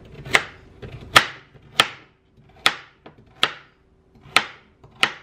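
Kitchen knife chopping carrots on a cutting board: about seven sharp knocks of the blade on the board, roughly one every second or a little less.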